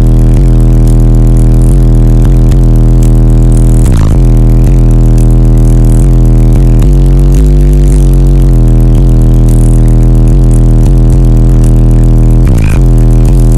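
Extreme car audio system with a wall of subwoofers playing deep bass notes at full volume, heard from inside the vehicle's cabin. It is so loud that the recording overloads into a distorted drone, and the bass note shifts about four seconds in and again near the end.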